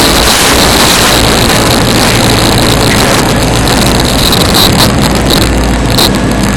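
Loud, distorted rumble of an off-road rock buggy's engine running steadily under load, mixed with heavy noise on the microphone.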